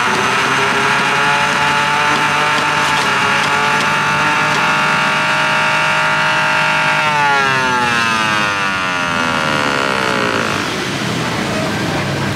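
Electric centrifugal juicer motor running with a steady whine. About seven seconds in, as fruit is pushed down the feed chute, its pitch falls steadily for a few seconds, then gives way to a rougher grinding noise.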